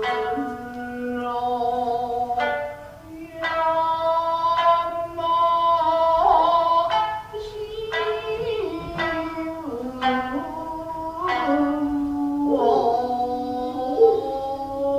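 Japanese classical dance music: a shamisen plucking sparse, sharp notes under a long-held, sliding sung vocal line.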